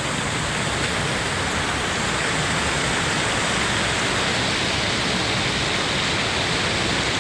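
Waterfall: falling water crashing steadily into its pool, a constant rushing noise.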